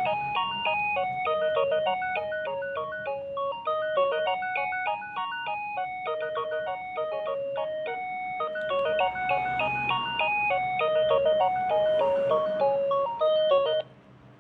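A Philips CD240 cordless phone playing one of its ringtones: a tune of quick stepping notes with a second, higher line of notes over it. It cuts off abruptly near the end.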